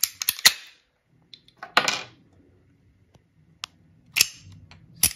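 Quick sharp clicks of a ratcheting pipe cutter being squeezed as its blade works through a thin-walled plastic PE-Xa pipe, then a short rasp and two single clicks. The fast clicking starts again at the very end.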